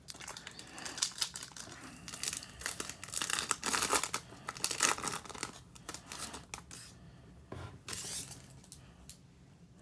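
A foil wrapper of a 2020 Topps Chrome trading-card pack being torn open, its wrapper crinkling and crackling as it is pulled apart. The crackle is busiest in the first five seconds and thins to quieter handling after about six seconds.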